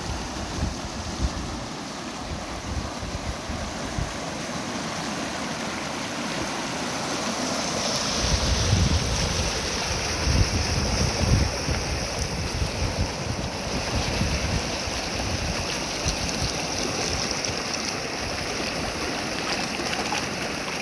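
Swollen pond-overflow stream in spate, rushing and churning over rocks as a steady wash of white water. Low rumbling swells the sound from about eight seconds in and eases after about twelve.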